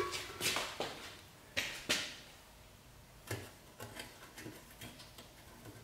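Light metallic clicks and knocks of a transmission pan and its bolts being handled as the bolts are started by hand, a handful of sharp ticks at irregular spacing, the strongest in the first two seconds.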